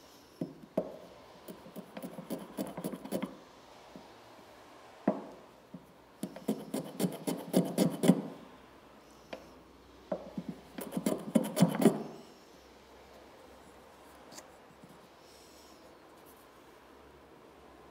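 Small one-handed block plane shaving the end of a wooden kumiko strip at 45 degrees against a jig, in three bursts of quick short strokes.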